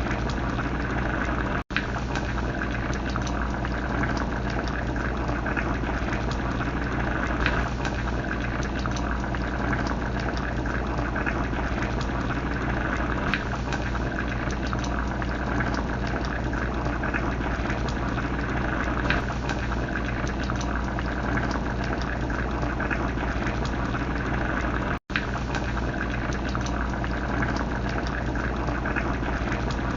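Crab rasam bubbling at the boil in a pot, a steady crackly bubbling over a low steady hum. The sound cuts out for an instant twice.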